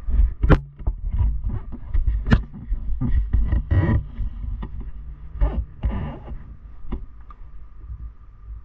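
Dirt bike engine idling with a low rumble, broken by irregular knocks and rustling bursts close to the microphone.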